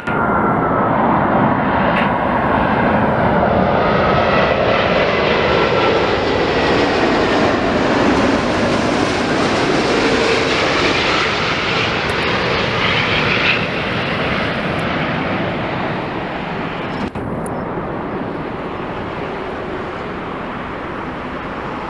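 Jet airliner passing by, its engine noise a dense rush that is loudest for most of the first half and then fades, with faint engine whine tones shifting in pitch through it.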